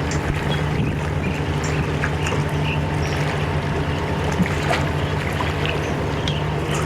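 A boat engine running steadily, a low, even hum that does not change, with short high bird chirps over it.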